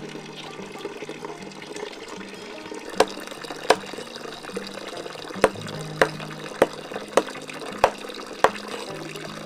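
Steady running or pouring water, with a series of about eight sharp knocks in the second half, less than a second apart.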